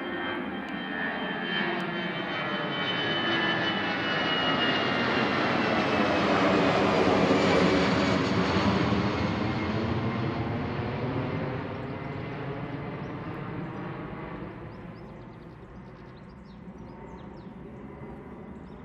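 Twin-engine jet airliner flying low overhead: its engine noise swells to a peak about seven seconds in, then fades as it moves away, with a falling whine and a wavering, sweeping rush.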